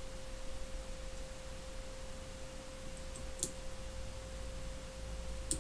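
A steady faint tone in the background, with a few small clicks of fly-tying scissors snipping excess material off at the fly's head about three and a half seconds in.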